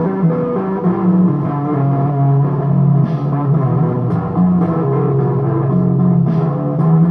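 Electric guitar playing a slow blues, with sustained low notes.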